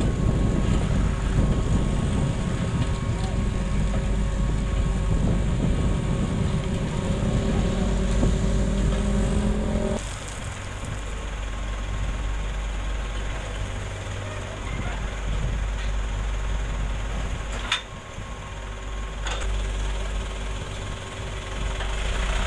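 Tandem road roller running on a new road surface, a dense, loud machine noise. It is cut off suddenly about ten seconds in by the quieter, steady idle of an Isuzu Elf dump truck, with two sharp knocks about a second and a half apart near the end.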